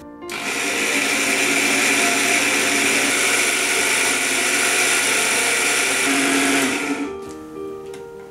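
Electric mixer grinder dry-grinding whole spices to powder in a small stainless-steel jar. The motor starts about a third of a second in, runs at a steady speed and stops about seven seconds in.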